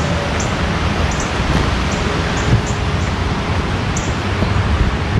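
Steady rushing wind noise on the microphone of a camera carried by a walker, with faint short high chirps repeating about twice a second.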